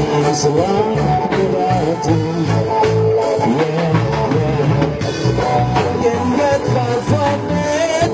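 Live band music in a Melanesian style: singing over guitar, bass and a steady drum beat.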